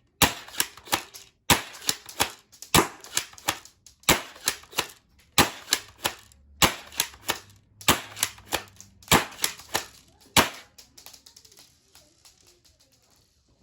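Spring-powered airsoft pump-action shotgun (UKARMS P2302 SPAS-12 style) being pumped and fired over and over. Each cycle is a sharp crack followed by a few lighter plastic clacks, repeating about every second and a quarter, nine times. The run stops about ten seconds in.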